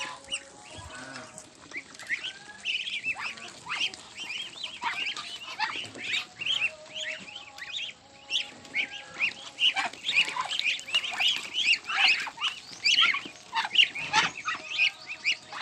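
A flock of ducks calling over one another as they crowd in for scattered grain: many short overlapping calls, getting busier about halfway through.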